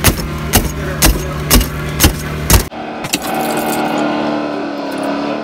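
A laminated car windshield being struck repeatedly with a long-handled bladed hand tool: six sharp chopping knocks, about two a second, over the steady drone of an engine-driven hydraulic rescue tool power unit. About halfway through the sound changes abruptly to a steadier mechanical drone.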